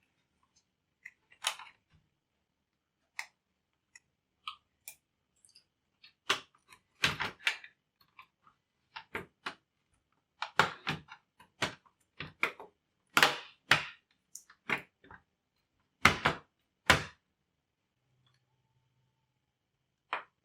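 Irregular clicks, taps and knocks of laptop parts being handled and fitted by hand, sparse at first and coming in quick clusters through the middle.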